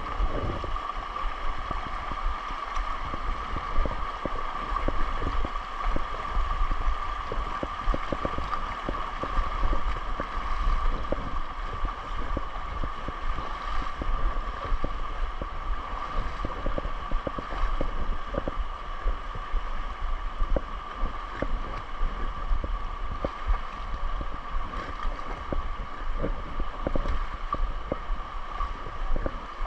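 Muddy river water rushing steadily over rocks, with irregular splashes of legs wading through it and a low rumble of wind on the microphone.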